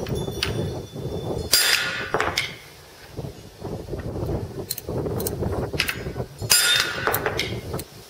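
A four-pound sledge striking a hammer-type lug crimper, forging a cast copper battery lug onto 2/0 welding cable. Two loud, ringing metal blows come about a second and a half in and about six and a half seconds in, with lighter metal knocks between them.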